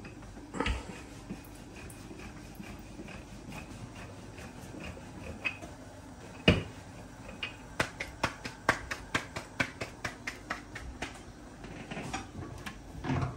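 Roti dough slapped by hand: one louder thump, then a quick even run of sharp slaps, about four a second, as the dough is patted out between the palms.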